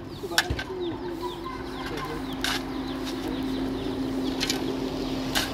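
Chickens clucking, with a few sharp knocks, and a steady low hum that sets in about two seconds in.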